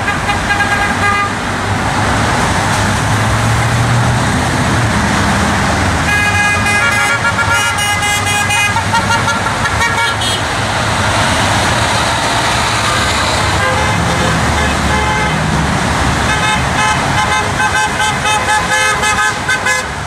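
Heavy interstate traffic rushing by below, with car horns honking from passing drivers: a horn about a second in, a longer honk around the middle, a short beep soon after, and a long run of honking near the end. The honks are drivers signalling support to sign-holders on the overpass.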